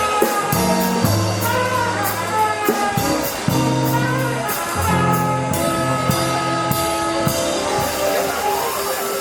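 Live jazz band playing: a bass steps through notes held about a second each under a melody, with a steady cymbal beat.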